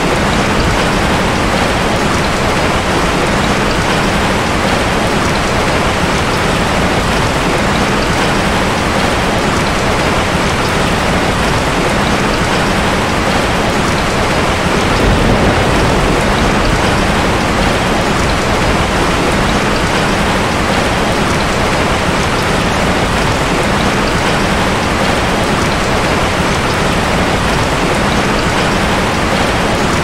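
Steady, loud rainfall: an even, unbroken hiss of rain falling on surfaces.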